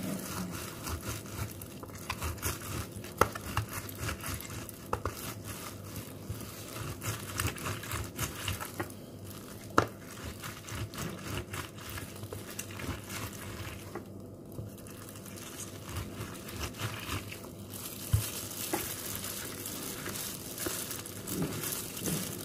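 Disposable plastic food-handling gloves crinkling and rustling as gloved hands rub and press a raw whole chicken, with a few sharp clicks along the way.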